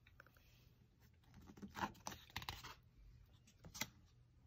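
Faint rustle of a picture book's page being turned about a second and a half in, followed by a single light tap near the end.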